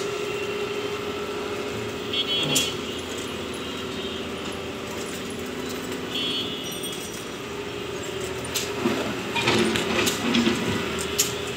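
Excavator engine running steadily on a dredging site, with scattered metallic clanks and knocks, most of them in the last few seconds.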